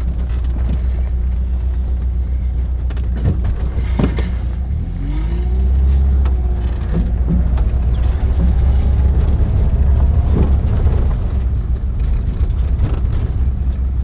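Interior sound of a Volkswagen Vanagon driving up a gravel road: a steady low engine and road rumble, with knocks and rattles from the van over the bumps. The engine note swells about five seconds in.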